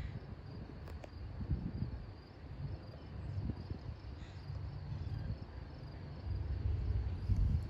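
Low, uneven rumble of wind on the microphone, swelling and easing, with a faint steady high-pitched tone above it.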